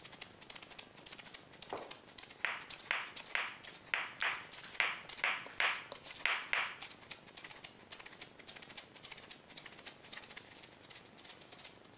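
A pair of maracas shaken in a fast, steady salsa rhythm, with stronger accented strokes standing out from about two to seven seconds in. The shaking stops right at the end.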